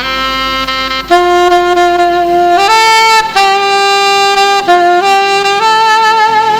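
Saxophone playing a slow melody of long held notes over a soft musical backing. The notes step up and down in pitch, and the later ones waver with vibrato.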